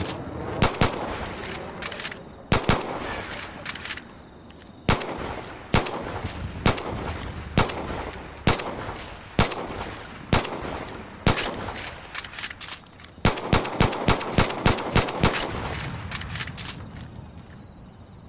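Ed Brown 1911 pistol firing: sharp shots, each with a long echoing tail. A few come quickly at first, then about one a second through the middle, then a fast string of shots near the end.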